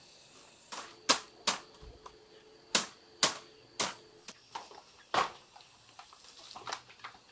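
A string of sharp knocks at uneven intervals, about eight strong ones, from hand work on a woven bamboo wall panel and its bamboo pole frame.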